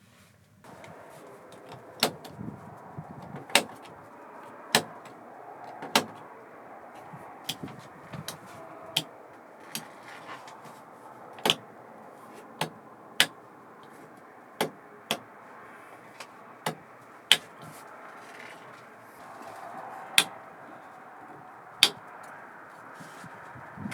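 Backhoe loader running steadily, with sharp metallic clanks at irregular intervals, roughly one a second.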